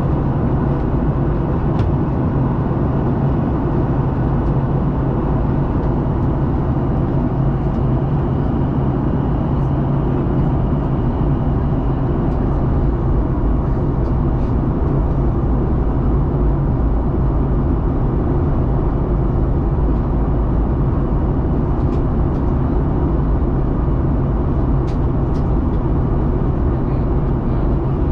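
Steady cabin noise of a Boeing 737-800 in flight during descent: the drone of its CFM56 turbofan engines mixed with the rush of air over the fuselage, with a low hum underneath.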